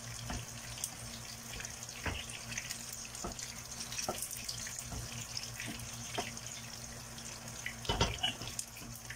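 Wooden spoon stirring a thick cream sauce in a stainless steel pot, with soft wet sloshing and short scrapes and knocks against the pot every second or so, the loudest about eight seconds in. A steady low hum runs underneath.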